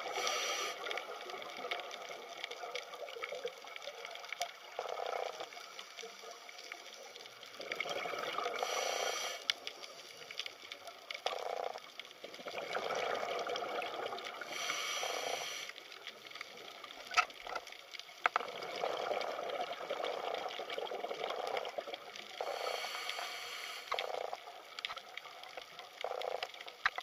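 Underwater water noise picked up by a submerged camera: a continuous bubbling, sloshing wash with louder bursts every few seconds.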